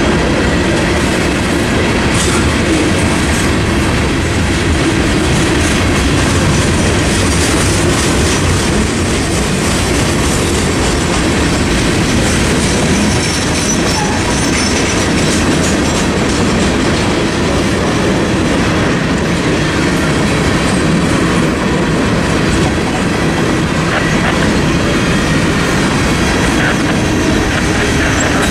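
Freight train cars rolling past at a level crossing: a steady, loud rumble and clatter of steel wheels on the rails.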